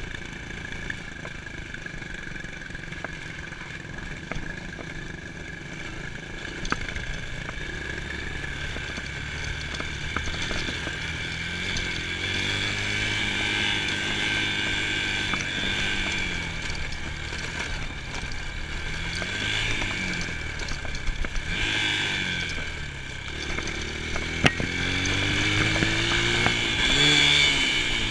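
Dirt bike engine running while riding, its pitch rising and falling with the throttle, growing louder in the second half.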